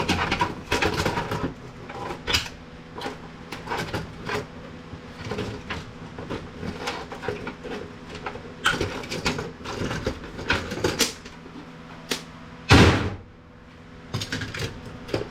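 Plastic and metal printer parts being handled and pried apart: scattered clicks, knocks and rattles, with one louder thud near the end.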